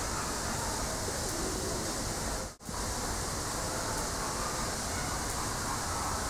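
Steady rushing background noise with no distinct events, dropping out for an instant about two and a half seconds in.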